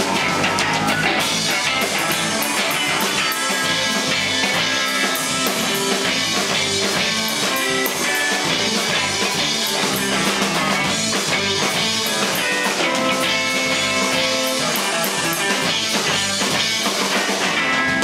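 A live rock band playing, an electric guitar leading over drums and bass guitar.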